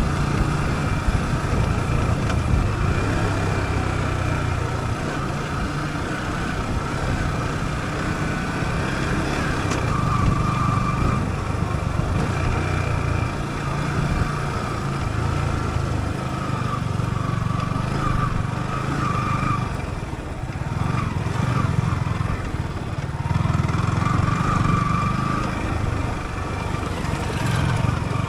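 Yamaha YZF-R15's single-cylinder four-stroke engine running under way off-road, the throttle opening and easing again and again, with a brief lull about twenty seconds in.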